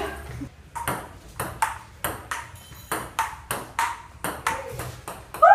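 Table tennis rally: the ball clicking off the paddles and the table in a steady rhythm, about three hits a second.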